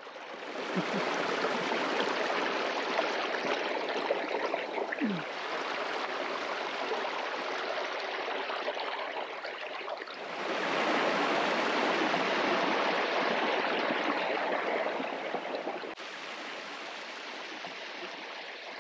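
A mountain brook running, swollen with rain and snowmelt runoff. The steady rush of water grows louder about halfway through and falls back to a softer level near the end.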